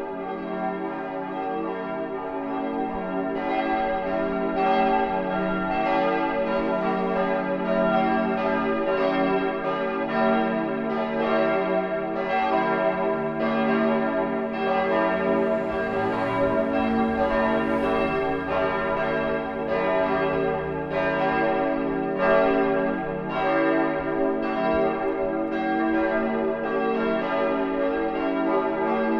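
Full peal of a church's swinging bells, several bells ringing together with their strikes overlapping continuously: the ringing-in for the Sunday service.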